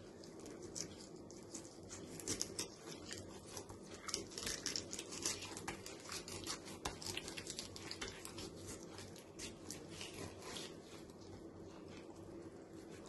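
Kitchen knife cutting and scraping through pink salmon fillet and skin on a plastic cutting board: a run of quick, irregular scraping and ticking sounds, thickest in the middle and thinning out near the end.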